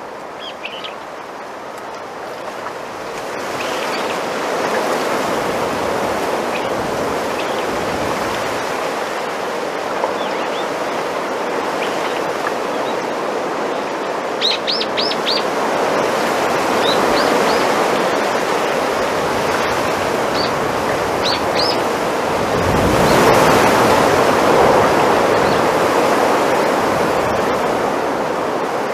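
Wind rustling through bamboo leaves, swelling and easing in slow gusts and loudest a little past the middle. Small birds chirp now and then over it, with a quick run of chirps about halfway through.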